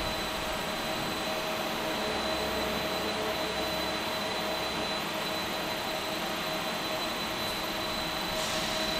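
Steady hiss of a robotic MIG welding arc from a Fanuc Arcmate 100i welding robot on a Lincoln power source, with a few constant high-pitched whines running under it.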